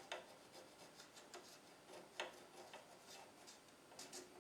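Near silence with a few faint, scattered small clicks, about half a dozen, the first and loudest right at the start.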